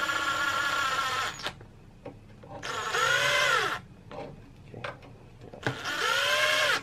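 DeWalt cordless impact driver running sprocket bolts in lightly, not torquing them, in three short runs of about a second each. The first run holds a steady pitch; the second and third rise and then fall in pitch.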